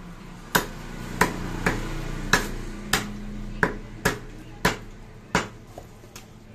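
Two heavy butcher's cleavers chopping goat meat and bone on a wooden stump chopping block: about ten sharp chops at uneven intervals, the two cleavers striking by turns.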